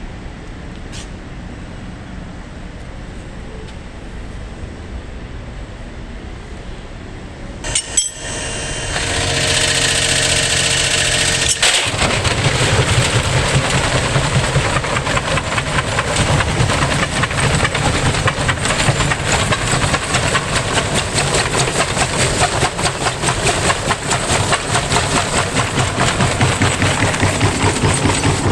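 Electrolux front-loading washing machine going into its spin: a low hum, then a rising motor whine about 8 seconds in. From about 12 seconds the spin turns into a loud, continuous rattling and banging with a steady beat of two to three knocks a second, the sign of a badly unbalanced drum shaking the machine.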